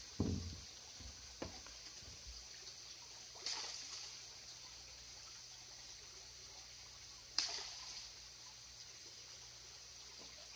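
Hands moving koi in a plastic tub of water: a dull knock at the start, then a few sharp splashes several seconds apart, over a steady trickle of running water.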